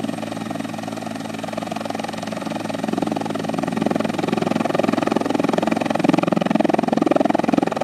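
Rescue helicopter running, a steady machine drone that grows louder and fuller about three seconds in.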